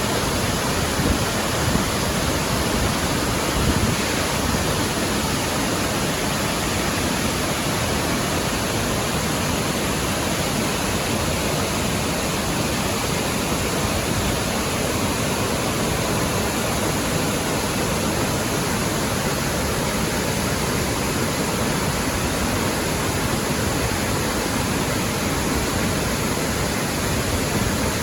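Steady rushing of running water, an even hiss with no breaks or changes.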